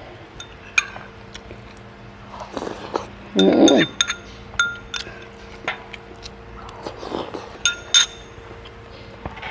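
A metal spoon clinks against a ceramic rice bowl and soup bowl in a series of sharp, ringing clinks as broth is spooned over rice and eaten. A brief, louder voice-like mouth sound comes about three and a half seconds in.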